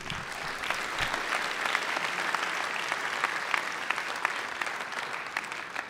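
Audience applauding steadily with many overlapping claps, easing off slightly near the end.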